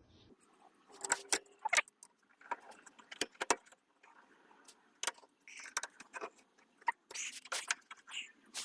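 Irregular metallic clicks, clinks and small rattles of hand work: the two screws holding a car's dashboard ashtray being undone and the metal ashtray worked loose.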